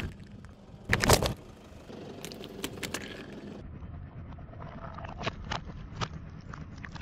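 A car tyre rolls over plastic cups filled with coloured jelly. There is a loud crack of breaking plastic about a second in, then smaller crackles and squelches, over the low rumble of the slow-moving car.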